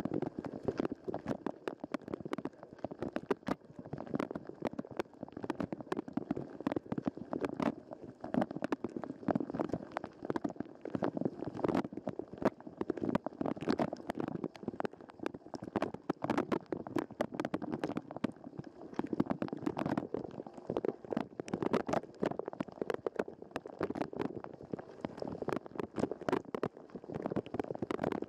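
Dishwasher spray jets striking a waterproof camera housing, heard from inside the case: a dense, irregular patter of water hits with a muffled splashing underneath.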